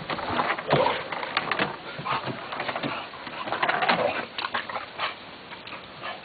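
Olde English Bulldogge making short, irregular dog noises while play-boxing, louder about a second in and again around four seconds, then quieter near the end.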